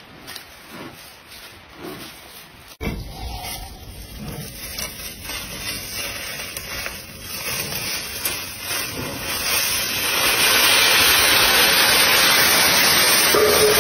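Dry fallen leaves rustling and crunching as a giant panda pushes through deep leaf litter. The sound is faint at first, jumps up about three seconds in, and keeps growing until it is loud and dense over the last few seconds.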